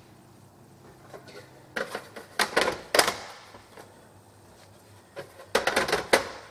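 Plastic toy roof panels clicking and knocking into place on a plastic frame: a run of sharp clicks about two to three seconds in, and another near the end.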